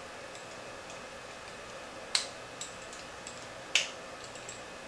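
Two sharp metal clicks about a second and a half apart, with a few faint ticks between, as a steel drive axle is forced into the bearings of an RC truck's steering knuckle.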